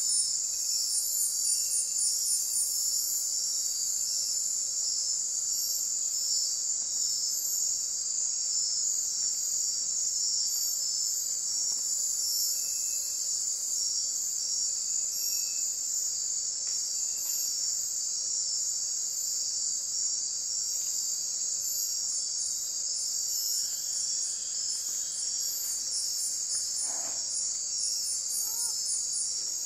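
Night insect chorus in tropical forest: crickets trilling in a dense, steady, high-pitched drone, with a faster pulsing trill above it that is clearest at the start and again near the end. A few faint short chirps come near the end.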